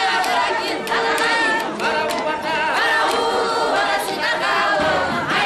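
Many voices singing together over a crowd, with sharp percussive beats through the singing.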